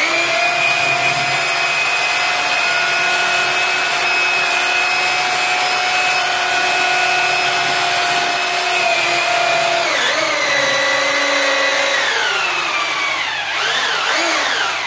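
Electric drill with a paddle mixer stirring gypsum plaster mortar in a bucket: a steady motor whine that starts suddenly, drops in pitch about ten seconds in as the load changes, then wavers up and down in speed near the end before stopping.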